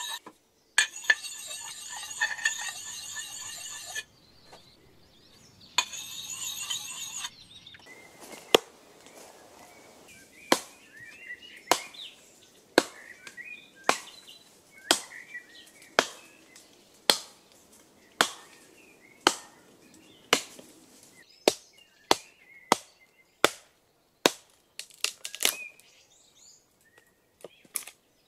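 Sharpening stone rasping against an axe's steel edge, then an axe chopping wood on a chopping block, sharp strikes roughly once a second.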